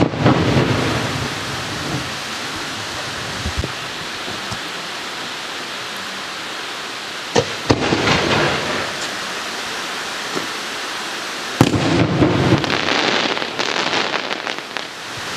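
Aerial firework shells bursting: a bang at the start, two close bangs about halfway through and another about three quarters in, each followed by a rolling rumble and hiss. A spell of crackling comes near the end. A steady hiss runs underneath.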